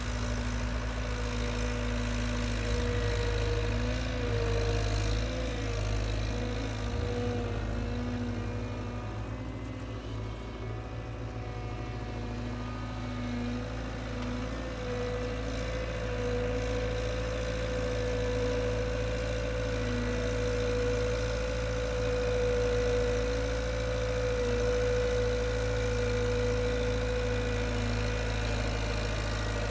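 Cat 256C skid steer's diesel engine running steadily as it pulls a Mini Might grader attachment over a dirt road. A steady tone over the engine grows stronger about halfway through.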